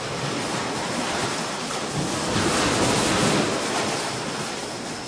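Storm wind rushing and buffeting the microphone in a steady loud roar of noise that swells a couple of seconds in and eases off again.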